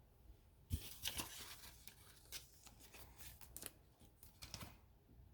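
Faint rustling and light clicks of trading cards being handled and shuffled, starting with a sharp click about a second in.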